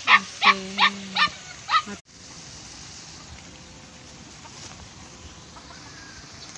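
An animal barking or yapping rapidly: five quick, evenly spaced calls about 0.4 s apart that cut off suddenly about two seconds in. After that only a faint steady outdoor background.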